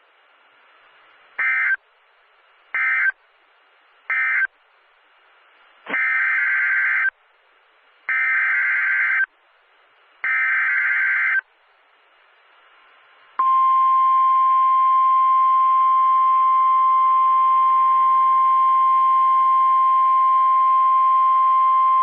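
NOAA Weather Radio's EAS/SAME signalling: three short screeching data bursts (the end-of-message code closing the previous warning), then three longer, identical screeching header bursts about two seconds apart that open a new warning. About thirteen seconds in, the steady single-pitch Warning Alarm Tone begins and holds.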